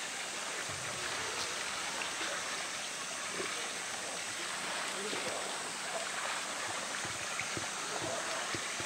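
Pool water splashing and sloshing around a swimming polar bear as it pushes a roly-poly toy through the water, over a steady rush of running water; a few soft splashes stand out near the end.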